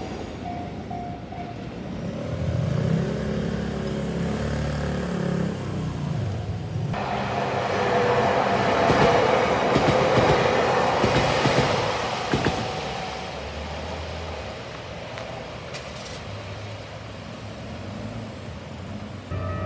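A train passing through a railroad crossing. A low hum rises and falls in pitch over the first few seconds; after an abrupt change about seven seconds in, a louder rush of wheels on the rails peaks mid-way and then fades.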